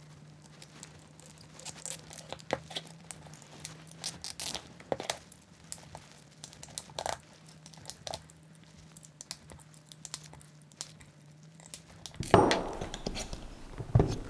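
Hands handling an aluminium robot weapon block on a wooden workbench: scattered light clicks and taps of metal parts, then, about twelve seconds in, a louder stretch of rubbing and scraping ending in a knock as the block is set down on the bench.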